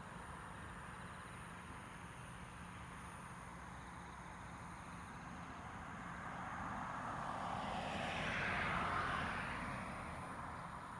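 A vehicle passing by, growing louder to a peak about eight or nine seconds in and then fading, over a steady outdoor background hiss.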